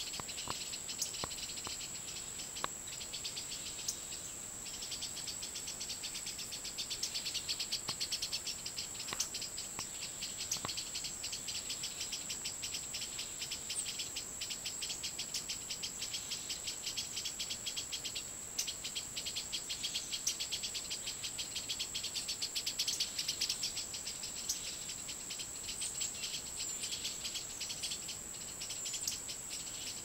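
Forest insects calling: a steady high-pitched whine over a dense, fast pulsing trill.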